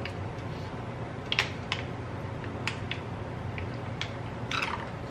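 A few light, scattered clicks and taps of kitchen handling over a steady low hum.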